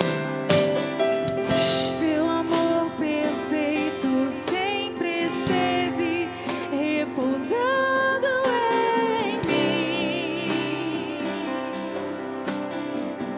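Acoustic worship music, with a voice singing a wordless melody that glides and wavers with vibrato over sustained instrumental chords.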